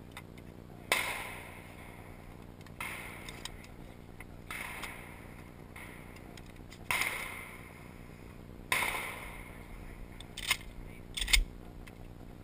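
Shotgun shots from elsewhere on the range, five of them, each trailing off in a short echo. Near the end come two short sharp knocks without echo, the second the loudest sound.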